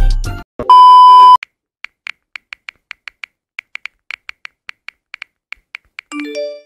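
A loud, steady censor-style bleep lasting under a second, then a run of light smartphone keyboard taps, about three or four a second, while a character types a message. Near the end comes a short three-note electronic chime stepping upward in pitch. A deep booming sound cuts off in the first half second.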